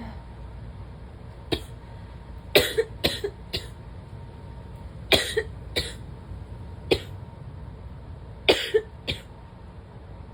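A person coughing in short fits: a single cough, then bursts of two to four coughs, about a dozen coughs in five groups. It is a dry cough that keeps threatening to turn wet but stays dry.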